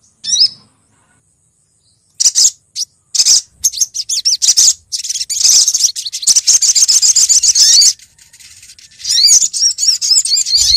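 Sunbird lure call, a recorded female sogok ontong (sriganti) calling to draw in males: high, thin chirps, first one short chirp, then scattered sharp notes, then long runs of rapid twittering with a short break between them.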